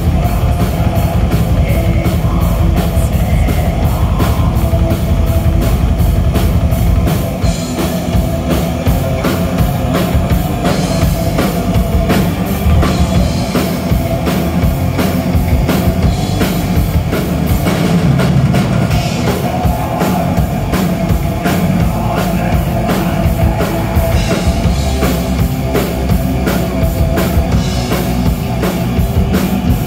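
Black metal band playing live: distorted electric guitars over fast drumming, heard loud through the venue's PA. About seven seconds in the heaviest low end drops away and the music carries on a little lighter.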